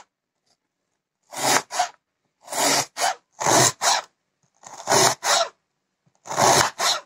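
Kitchen knife slicing through a peeled onion onto a plastic cutting board, cutting half rings. About five slices a second or so apart, each made of two quick strokes.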